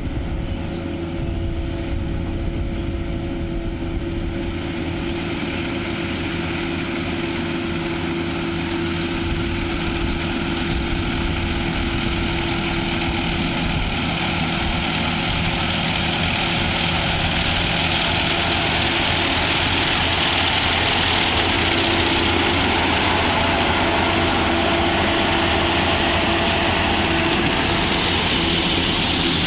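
Engine of a harvesting machine running steadily with a constant hum, growing a little louder and hissier in the second half.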